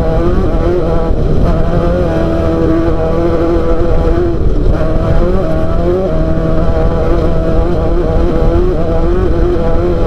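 Off-road race car engine running hard, its pitch rising and falling again and again with the throttle, over a heavy low rumble.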